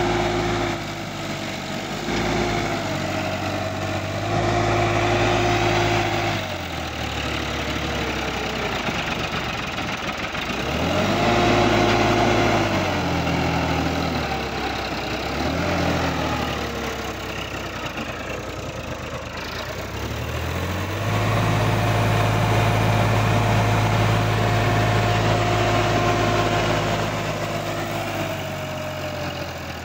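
Sonalika DI-50 RX tractor's diesel engine revving up and down under the load of a full trolley. It gives several surges of revs in the first half, then holds high revs for about seven seconds before the pitch falls away near the end.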